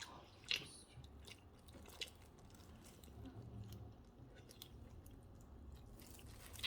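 Close-miked chewing of a mouthful of burger: soft wet mouth clicks, with a sharper crunch about half a second in and another about two seconds in.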